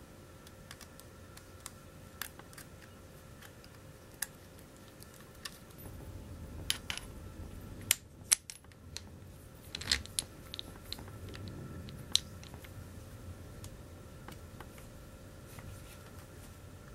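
Small metal parts of a gas-blowback airsoft MP5 clicking and clinking as they are handled and fitted by hand, with scattered sharp clicks and a few louder clinks around the middle, over a low rustle of handling.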